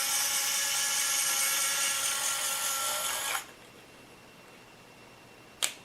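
Small electric motors of a Die Cast Masters 1/16 RC Cat loader running with a steady whine, stopping about three and a half seconds in. A short click comes near the end.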